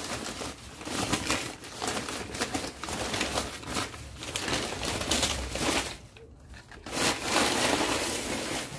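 Newspaper wrapping rustling and crinkling as hands pull it off a bare-root orchid, with a short lull about six seconds in.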